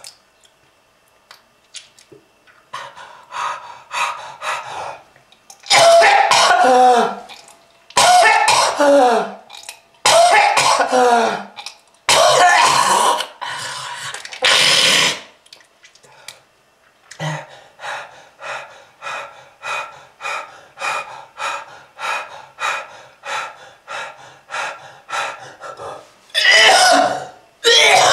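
A smoker's heavy, harsh coughing fits: five long, loud coughs with the voice straining and falling in pitch, then a long string of short hacking coughs about two a second, and one more heavy cough near the end.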